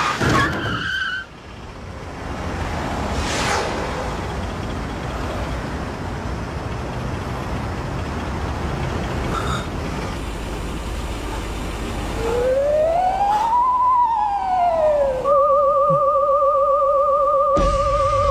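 A short high squeal at the start, then a steady rush of car and street noise. About twelve seconds in, a comic sound effect comes in: a tone slides up and back down like a siren or slide whistle, then a wavering, warbling tone is held to the end.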